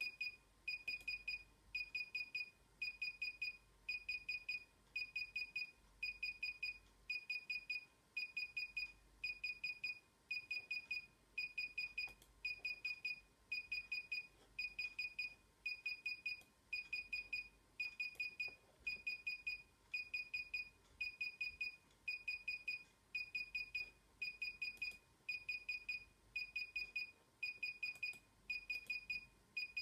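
DJI Inspire 1 remote controller beeping while its firmware installs: short high beeps in quick groups of four or five, each group repeating about once a second, steady throughout.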